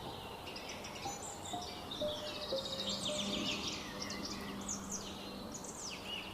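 Several small birds chirping and twittering in a busy overlapping chorus of quick high notes, over a few steady lower notes that step downward one after another.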